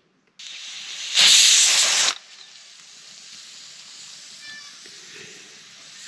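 Hissing from cooking on the fire. It starts suddenly, is loud for about a second, then settles to a steady, quieter hiss.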